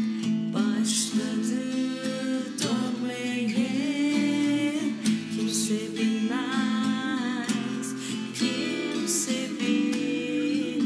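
An acoustic guitar is played while a woman sings a slow melody over it.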